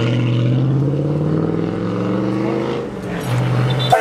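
A vehicle's engine accelerating, its note rising steadily for about three seconds, then falling back briefly near the end.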